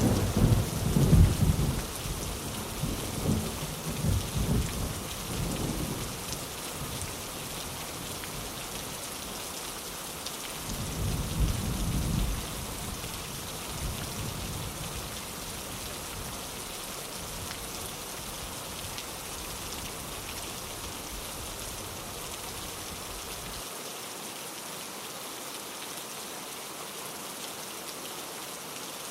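Steady heavy rain with rolling thunder: a long rumble that fades out over the first few seconds, a second shorter rumble about eleven seconds in, then only the even hiss of the rain.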